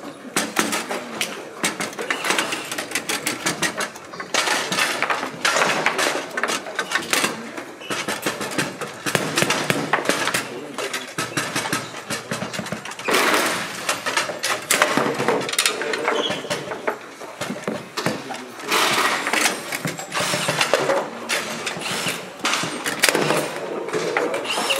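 Table-football play on a Bonzini table: rapid, irregular clacks and knocks of the ball being struck by the rod figures and hitting the table walls, with rods rattling, over background voices.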